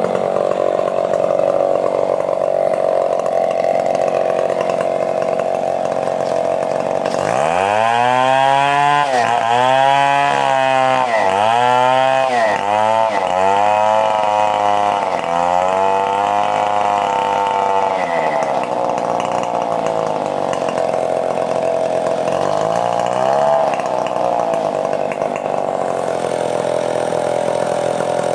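Stihl 070 chainsaw's big two-stroke engine running steadily, then revved up and down about five times, each rev rising and falling in pitch, with one more short rev near the end before it settles back to a steady run.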